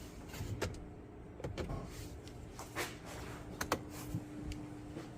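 Scattered light clicks and knocks, a handful over a few seconds with two quick ones close together about three and a half seconds in, over a steady faint hum.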